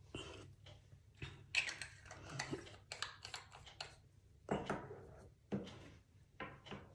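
Faint close-up handling noise: scattered clicks, taps and rustles, thickest in the middle, as makeup and a makeup sponge are handled near the phone and the phone is jostled.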